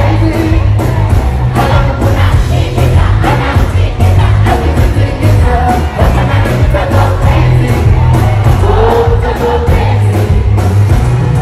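Loud live band music with a heavy bass line and a steady drum beat, voices singing over it and a crowd in the mix.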